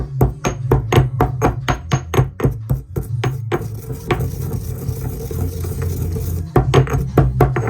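Background music with a steady beat: a sustained bass line under regular percussion hits, busier in the middle.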